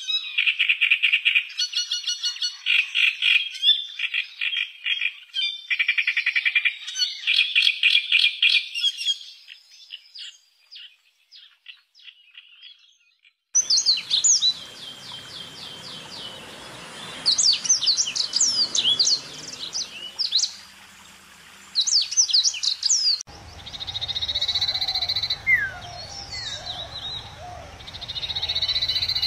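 Wild animal calls in three recordings joined end to end: first a loud, dense chorus of rapid rattling calls that fades out about ten seconds in; after a cut about thirteen seconds in, quick whistled notes sweeping up and down, typical of a songbird; then, from about twenty-three seconds, more bird calls over a low hum.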